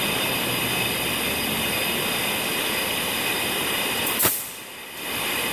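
Steady whirring of running shop machinery, with fixed high tones over an even noise. A sharp click comes about four seconds in, after which the noise briefly drops away and then returns.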